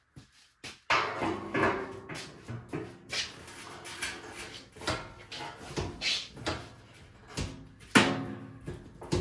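Irregular metal knocks and clanks, some with a short ring after them, from steel parts and tools being handled against a steel drum; the loudest knock comes near the end.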